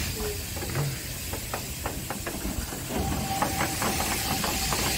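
Steam locomotive rolling slowly past at close range: a steady hiss of steam with scattered clanks and knocks from the wheels and running gear. A thin steady tone joins in about three seconds in.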